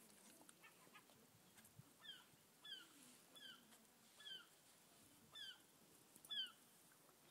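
An animal's high-pitched squeaky call, repeated six times about once a second, each call a short downward slide in pitch; the last is the loudest.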